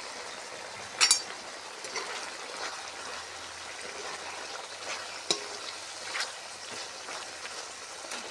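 Food sizzling and bubbling in a metal pot while a metal spatula stirs it, with a sharp clank of the spatula against the pot about a second in and another near the middle.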